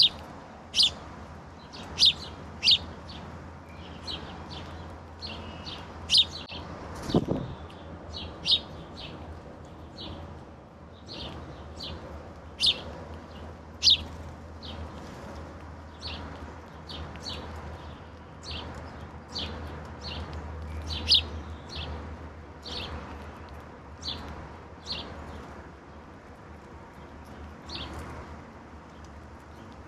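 Garden songbirds calling: a run of short, sharp chip notes, dense in the first half and sparser later. A single soft thump comes about seven seconds in.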